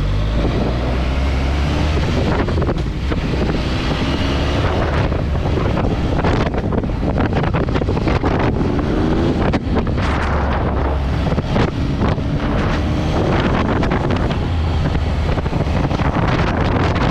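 Triumph Tiger 1200 XCA's inline three-cylinder engine running under way, with heavy wind buffeting on the microphone over a steady low rumble. The engine note rises briefly a couple of times.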